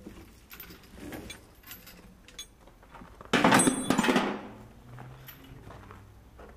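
Scattered clinks and knocks of steel flail chains being handled on a muck spreader's rotor shaft. About three seconds in comes one loud rough rustle lasting about a second.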